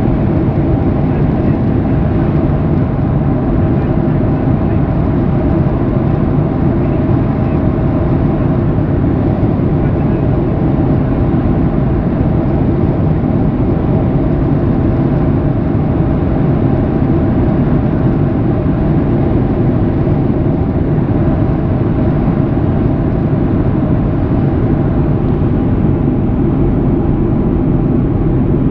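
Boeing 737 cabin noise heard from a window seat over the wing during descent: a steady deep rumble of jet engines and airflow, with a few faint steady hums running through it.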